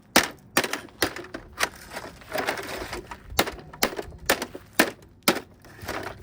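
Hammer striking the plastic casing of a Trifo robot vacuum, about ten sharp knocks at uneven intervals as it is being broken apart.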